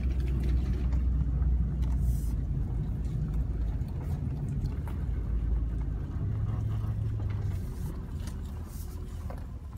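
Vehicle driving slowly over a rough dirt lane, heard from inside the cab as a steady low rumble of engine and tyres, with a few faint knocks; it eases off near the end.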